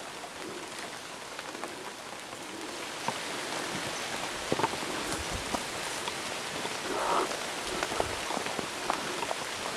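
Rain falling on jungle foliage: a steady hiss with scattered sharp drop hits, getting a little louder about three seconds in.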